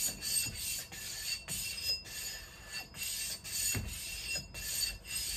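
Edge of a True Temper Kelly Perfect single-bit axe being sharpened by hand: repeated short scraping strokes of an abrasive on the steel bit, about two a second.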